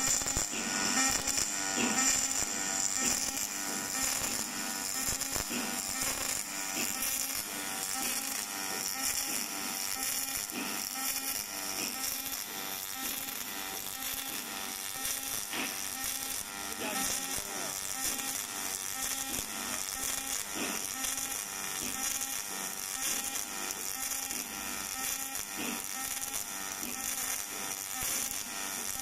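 Robotic arc welding: the welding arc on the joint between a metal tube and its flange buzzes steadily, with a fine crackle throughout.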